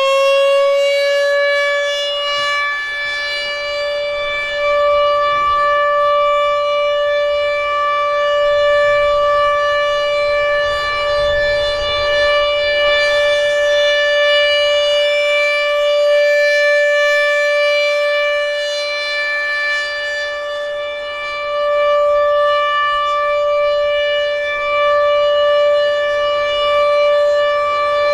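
ACA PN-20 outdoor warning siren sounding a steady Alert tone, reaching full pitch just after a wind-up and then holding one steady pitch. Its loudness swells and fades every few seconds.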